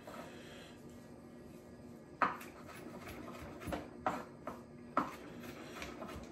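Kitchen knife chopping fresh cilantro on a cutting board: about five sharp, irregularly spaced knocks starting about two seconds in, over a faint steady hum.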